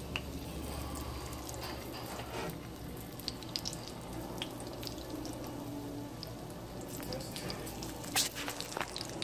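Floured fish fillets frying in hot oil in a nonstick pan: a steady sizzle with scattered pops and crackles, and a louder burst of crackling near the end.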